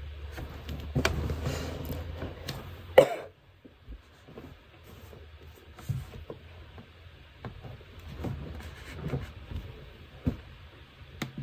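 Rustling for a couple of seconds near the start that ends in one sharp click, then scattered light clicks and taps of hands working at a computer desk.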